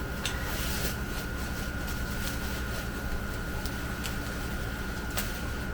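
Steady room hum with a faint, thin high whine over it, and a couple of light clicks, one just after the start and one near the end, as rollator wheel parts are handled.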